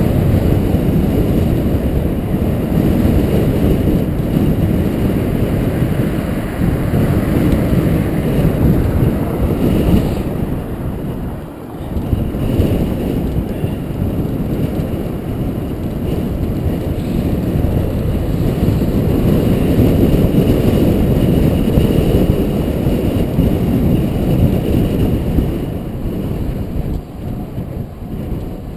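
Steady wind rumble buffeting the microphone of a camera carried on a bicycle moving at speed, easing briefly about twelve seconds in.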